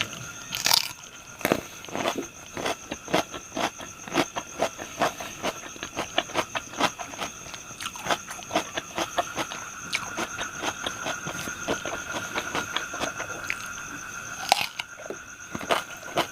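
Close-up chewing of crunchy food: a dense, irregular run of crunches and mouth clicks, several a second, with two steady high tones in the background.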